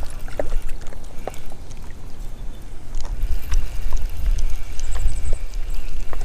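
Wind buffeting the microphone as a steady low rumble, with a few light clicks from the spinning rod and reel being handled.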